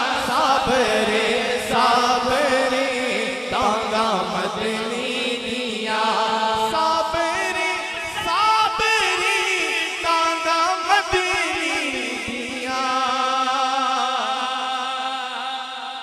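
A man singing a naat into a microphone: long, drawn-out vocal phrases with a wavering, ornamented pitch.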